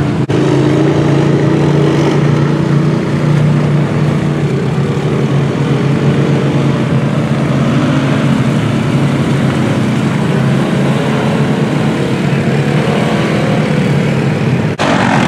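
Side-by-side UTV engine running hard under load while the machine churns through mud, the engine pitch rising and falling as the throttle is worked.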